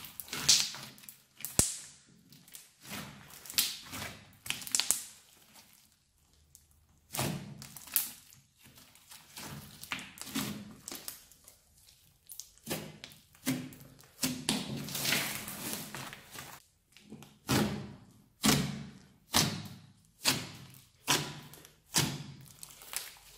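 A large mass of mixed old slime being kneaded, pressed and poked with bare hands: a string of separate squishing presses, settling into a regular run of about one a second near the end.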